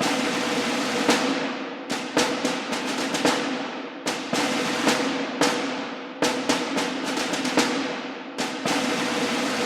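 Music with drums and percussion: repeated sharp drum hits over a steady sustained tone.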